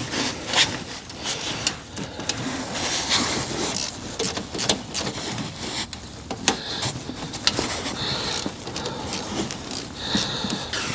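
Hand tools working on the 10 mm bolts of a truck's thermostat housing: irregular metallic clicks, knocks and scraping.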